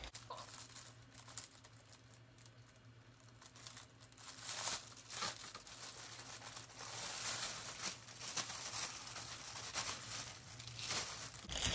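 Clear plastic bag crinkling and rustling as it is pulled open by hand, with short ripping sounds. The handling is faint at first and gets louder about four seconds in.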